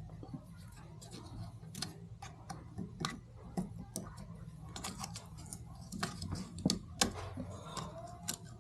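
Scattered light clicks and taps of small parts being handled and removed while assembling a 3D printer, irregular and quiet, over a low steady hum.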